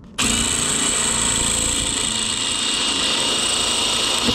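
Ryobi ONE+ 18-volt cordless drill running steadily at full speed, drilling into a stripped Phillips-head wood screw to get it out. It starts a moment in, with a steady high whine over the noise of the bit cutting.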